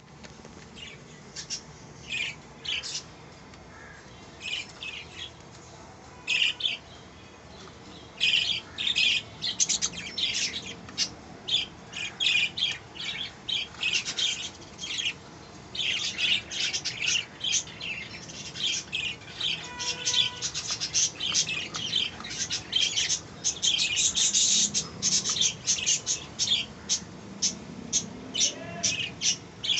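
Budgerigar chicks chirping and squawking in many short, high calls: a few scattered calls at first, then a dense, almost unbroken run from about eight seconds in.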